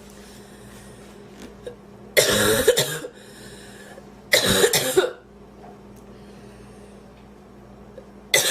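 A woman coughing hard in two bursts about two seconds apart, with a third starting at the very end. She is trying to clear sandwich food she inhaled into her airway.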